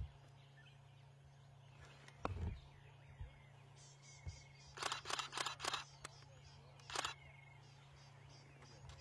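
A dull thump about two seconds in, then a quick run of about six sharp clicks in a second, and one more click a couple of seconds later, over a low steady hum.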